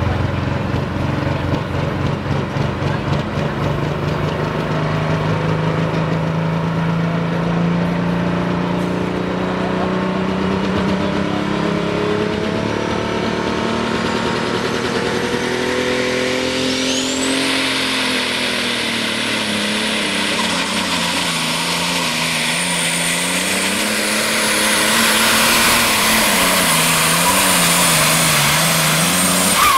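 Super stock or pro stock pulling tractor's turbocharged diesel engine under load. Its pitch climbs through the first half; then, about halfway, a high steady turbo whistle and a loud rushing hiss come in while the engine speed wavers up and down, growing louder toward the end.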